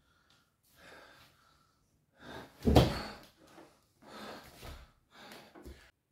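A man gasping and panting heavily in rough bursts about a second apart, with one loud thump about three seconds in, as of a body knocking against a door. The sound cuts off suddenly near the end.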